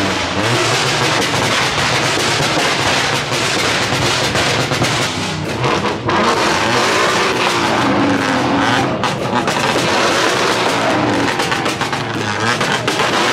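Loud car engines revving, their pitch rising and falling.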